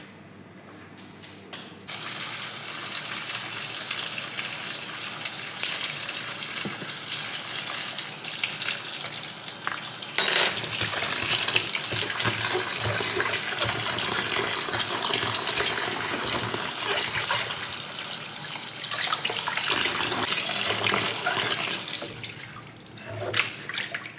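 Water running steadily, like a tap or a splashing fountain, starting about two seconds in and dying away near the end, with a brief sharper splash or knock about ten seconds in.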